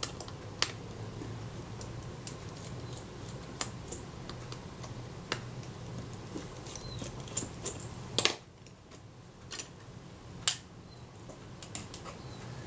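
Light, scattered clicks and scrapes of a small metal hand tool working at the metal end plate of a Kodak Retina IIIc camera body, over a steady low hum, with one louder clack a little after eight seconds in.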